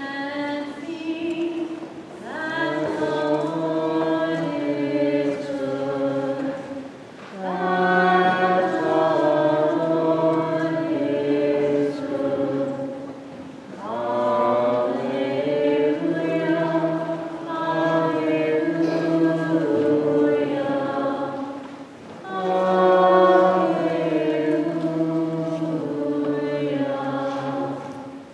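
A group of voices chanting a Byzantine liturgical hymn together in harmony, in about five long sung phrases with short pauses between them.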